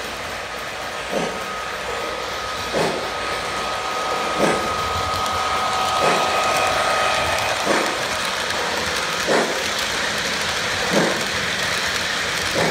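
Lionel LionChief model trains running on three-rail O-gauge track: a steady rolling rumble of wheels and motors, with a short click about every second and a half.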